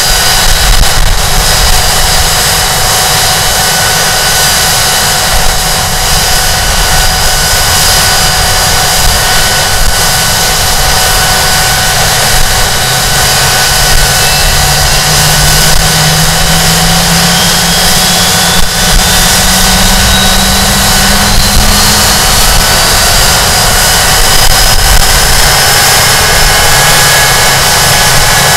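Rolls-Royce Spey turbofan engines of a Hawker Siddeley Nimrod MR2 running, heard close to an air intake: a loud, steady rush with a high whine. In the second half a low tone and a few high tones climb slowly in pitch.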